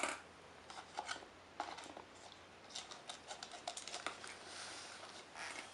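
Faint, irregular scratching and light clicks of hands and small toys moving in sand in a home sandbox.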